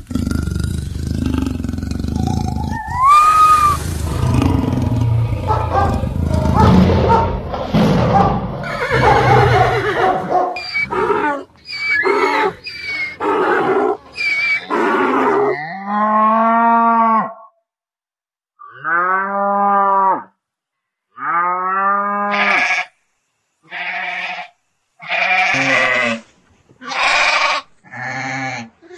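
A run of animal sound effects: a dense jumble of roars and growls over the first ten seconds or so, then separate farm-animal calls, each one to two seconds long, with short silences between them.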